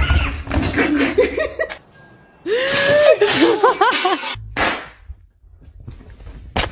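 People's voices in two wordless outbursts, cries with sliding pitch, separated by a short pause, followed by a sharp click near the end.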